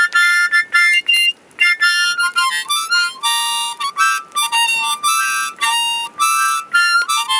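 Harmonica played in a quick run of short blown and drawn chords and single notes, each note broken off from the next.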